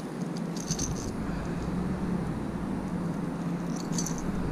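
Light clicking and rattling as a lure is reeled in and lifted from the water on a spinning rod, in two short clusters near the start and about four seconds in, over a steady low hum.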